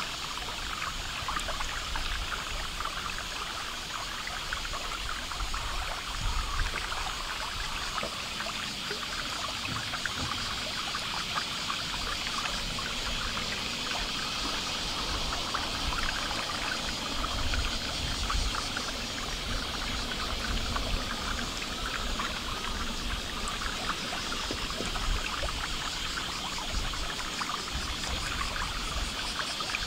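Steady trickle of running water, an even fine-textured hiss, with an uneven low rumble of wind on the microphone underneath.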